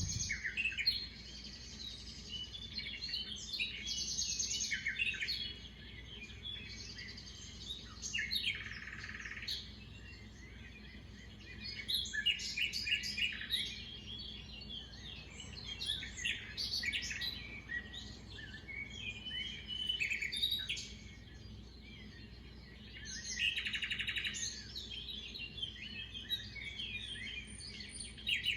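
Small birds chirping: many short, high chirps and twitters, coming in busy clusters every few seconds with quieter gaps between.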